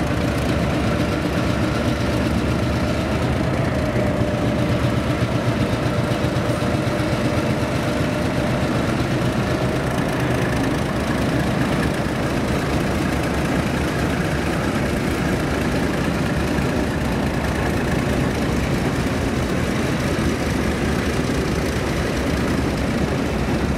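Narrow-gauge diesel-electric locomotives passing slowly at close range: a Clyde-built EMD unit followed by Goodwin-built ALCO units, their diesel engines running steadily.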